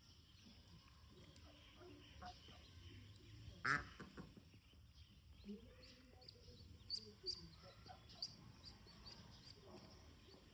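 Ducklings peeping faintly and on and off, with one louder short call about four seconds in.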